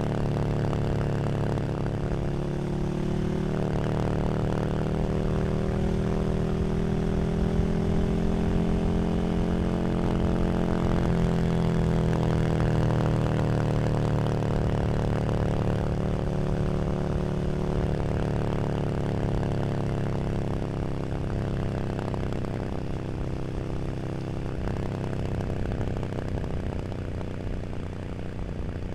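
KTM 1290 Super Duke R's V-twin engine running through an Arrow slip-on exhaust. It holds a steady note whose pitch drifts gently in the first half, then eases slightly in level near the end.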